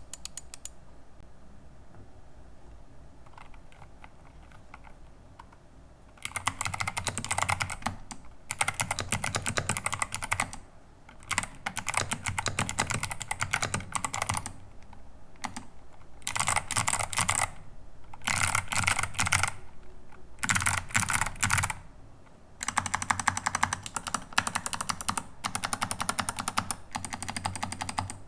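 Typing on a Kbdfans DZ60 rev3 mechanical keyboard with clicky Kailh BOX Jade switches and PBT keycaps: fast runs of sharp key clicks, one to a few seconds long, with short pauses between. The first few seconds hold only a few faint scattered clicks before the typing picks up.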